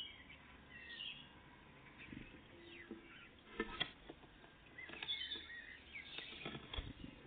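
Tits chirping and calling in short phrases, with several sharp taps and clicks at the peanut feeder.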